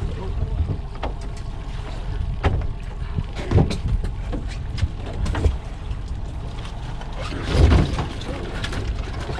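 Steady low boat-motor hum under scattered knocks and clatter, as a crab trap full of Dungeness crab is handled aboard. A louder burst comes about three-quarters of the way through.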